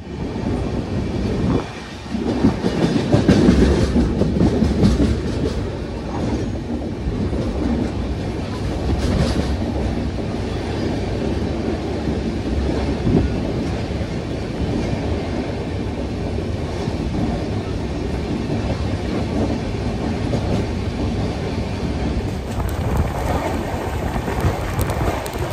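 Passenger train running along the line, heard from an open coach window and door: a steady rumble of the coaches with the wheels clacking over the rail joints, a little louder a couple of seconds in.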